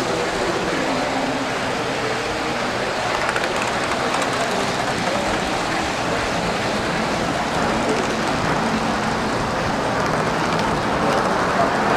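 Model trains running on track: a steady rumble of wheels on rails as the live-steam Cardean-class locomotive and other trains pass, with murmuring voices in a large hall behind it.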